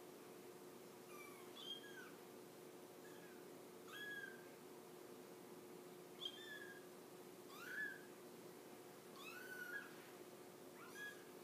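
Three-week-old kittens mewing: thin, high-pitched cries every second or two, some rising then falling in pitch, over a faint steady hum.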